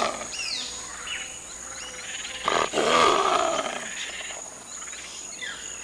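Jaguarundi snarling: one harsh, raspy call of about a second, starting about two and a half seconds in. It sits over a steady high insect drone, with short falling whistles near the start.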